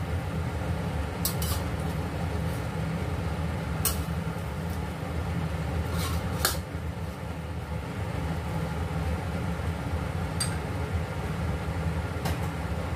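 Metal spatula clinking and scraping against a stainless steel pan while stir-frying vegetables, a few sharp clinks a couple of seconds apart, over a steady low rumble.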